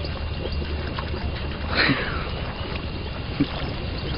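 Chevrolet Niva's four-cylinder engine running with a steady low hum as the SUV wades deep through a river, with wind on the microphone. About two seconds in, a short high sound falling in pitch stands out.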